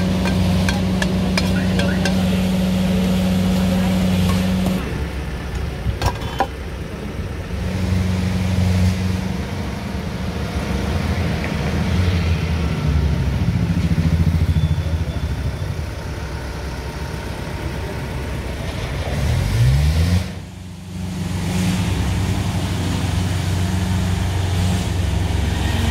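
A motor vehicle engine runs with a steady low hum amid street noise. It revs up with a rising pitch about twenty seconds in and drops away sharply just after.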